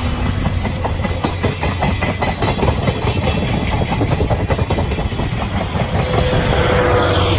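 12-series passenger coaches of a steam-hauled train rolling past close by, their wheels clattering rapidly and unevenly over the rail joints, over a steady low rumble.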